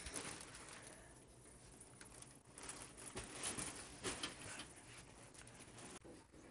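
Faint rustling and soft thumps with a few short clicks, such as a person moving over bedding.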